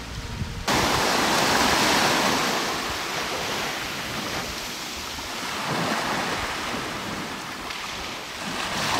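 Small waves washing onto a sandy beach, swelling and easing every few seconds, with wind on the microphone. A short tail of music cuts off under a second in.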